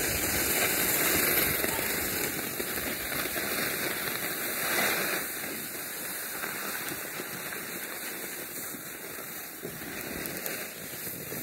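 Skis sliding downhill on groomed corduroy snow, making a steady hiss that is louder in the first half.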